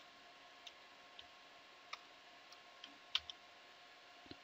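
Faint computer keyboard keystrokes: a few scattered, irregular clicks as a command is typed, over a faint steady hum.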